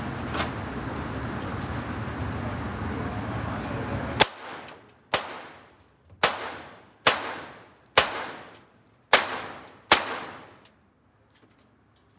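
Seven handgun shots fired about one a second, starting about four seconds in, each followed by a long echo off the indoor range's walls. Before the first shot a steady background rush is heard, which cuts out at the first shot.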